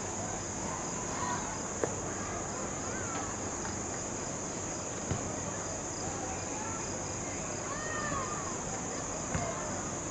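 Insect chorus in the evening: a steady, high-pitched continuous trill, with a few faint knocks.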